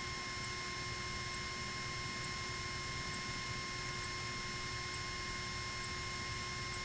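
Steady electrical hum and hiss from a Cessna 172's intercom audio feed, with several fixed tones and a faint high whine that dips briefly about once a second. Little or no engine sound comes through.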